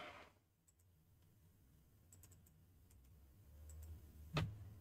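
Faint scattered clicks of a computer mouse and keyboard over a faint low hum, with one louder click about four and a half seconds in.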